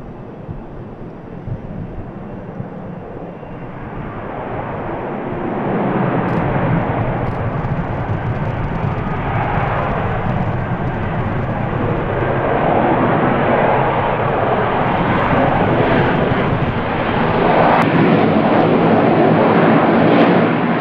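F-35B Lightning II's jet engine and lift fan in vertical takeoff and hover, a loud, dense jet noise. It grows louder over the first six seconds or so as thrust builds, then holds loud.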